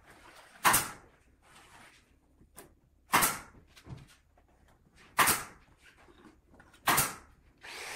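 Four short scraping strokes of a hand chisel against wood, about two seconds apart, each starting sharply and fading quickly.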